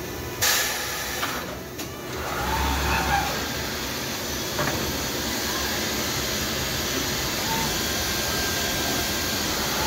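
CNC woodworking boring machine running with a steady mechanical noise. A sudden loud hiss comes about half a second in, and brief whines sound a couple of times as the head moves.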